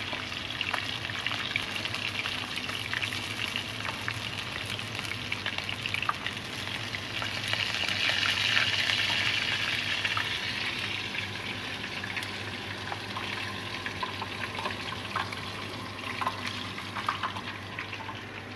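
Chicken wings deep-frying in hot mustard oil, a steady sizzle that swells louder for a few seconds around the middle. Light clicks of metal tongs and a wire skimmer against the pan come and go.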